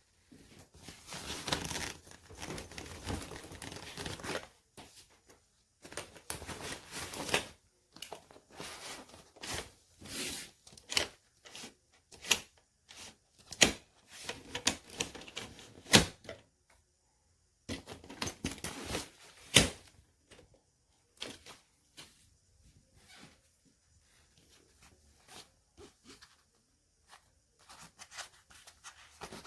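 Handling noise: stretches of rustling and crinkling broken by sharp clicks and knocks, the loudest clicks about halfway through, thinning out to a few faint ticks in the last third.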